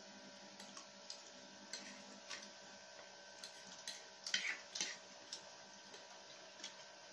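Irregular light clicks and scrapes of plastic forks on plates as noodles are eaten, with a louder cluster of noisier eating sounds a little past the middle.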